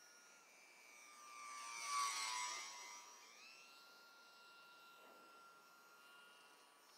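Electric radio-controlled model airplane flying past: a high-pitched motor and propeller whine that swells to its loudest about two seconds in as the plane passes close, then carries on fainter and steady.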